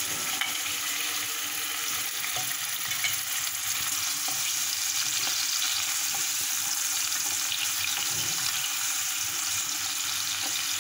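Sausage slices and chicken chunks sizzling steadily as they fry in hot oil in a pan, with a few light clicks as they are stirred.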